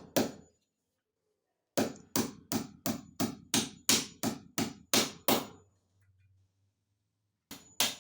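A hammer striking repeatedly at a steady pace of about three blows a second, driving a fixing into a wall. The blows come in runs that stop abruptly: a few at first, a long run from about two seconds in, and more starting near the end.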